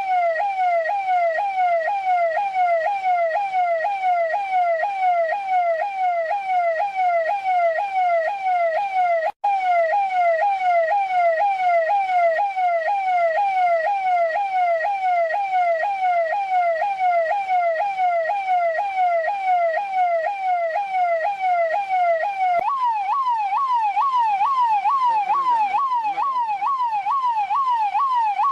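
Russian police car siren in a fast warble, its pitch sweeping up and down about two or three times a second. It cuts out for an instant about nine seconds in, and after about 22 seconds it jumps to a slightly higher pitch and keeps warbling.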